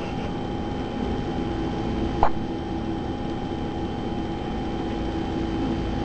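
A week-old premature baby hiccups once, a single short, sharp hic a little over two seconds in, over a steady background hum.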